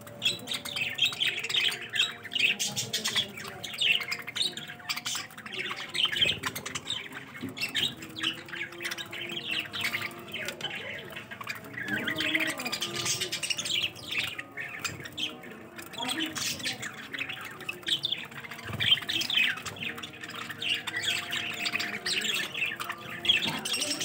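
A flock of budgerigars chattering as they feed: a continuous, busy mix of short chirps, warbling and sharp squawks from many birds at once.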